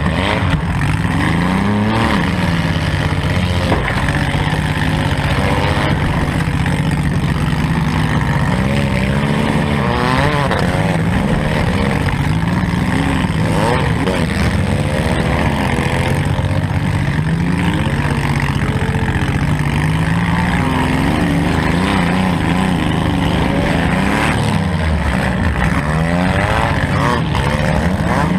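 Modified four-cylinder demolition derby car engine revving up and down repeatedly, the pitch rising and falling every second or two.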